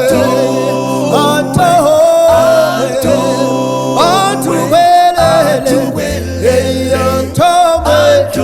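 A cappella vocal group singing in close harmony without instruments, a low bass voice holding long notes under the higher parts.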